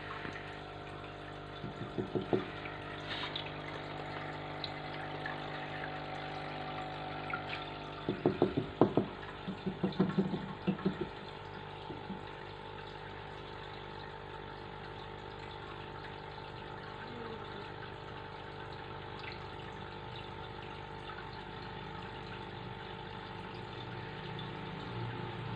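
Aquarium filter pump running with a steady hum and trickling water. Short clusters of knocks and rattles come about two seconds in and again from about eight to eleven seconds in.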